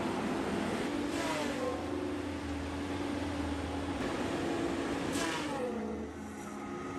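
A heavy forestry machine's engine runs steadily. About a second in and again about five seconds in, a falling whine comes with a rush of noise.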